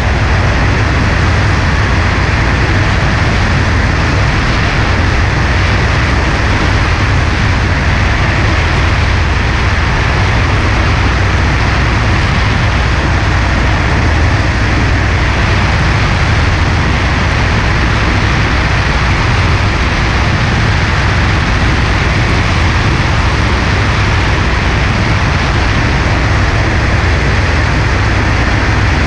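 Light aircraft in flight: a Cessna 140A's engine and propeller running steadily under heavy wind rush over a wing-mounted camera, loud and unbroken.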